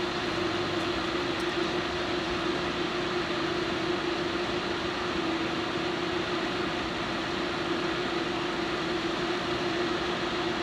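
Steady hum with one constant low-mid tone over an even hiss, unchanging throughout.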